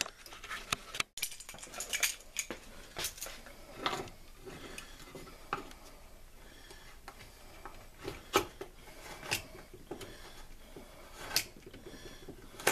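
Wooden parts and hand tools being handled and set down on a workbench during glue-up and assembly: scattered clicks, taps and light knocks, a few of them sharper and louder.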